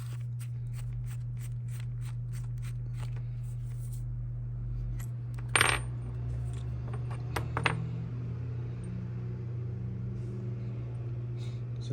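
Small metal cable-connector parts being handled as the connector is opened up: a run of light clicks at about four a second, then a sharp metallic clink with a brief ringing tone about five and a half seconds in, and a few more clicks a couple of seconds later, all over a steady low hum.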